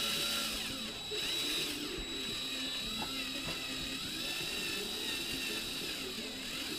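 Electric drill running steadily with a high whine, boring out a rivet head.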